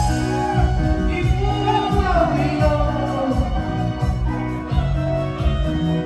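Live band playing a chilena, Oaxacan dance music with a steady bass on a regular beat. A voice sings over it between about one and three seconds in.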